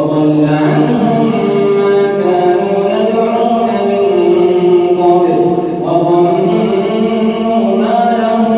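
A man's melodic Quran recitation in Taraweeh prayer, chanted in long, drawn-out held notes that glide between pitches. There is a brief pause about six seconds in before the next phrase.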